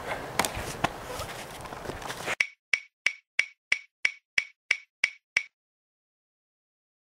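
Faint outdoor background with a few light knocks, then, about two and a half seconds in, a dubbed-in ticking sound effect. It is ten short, sharp ticks at about three a second, with dead silence between them and after them, like a bomb timer counting down.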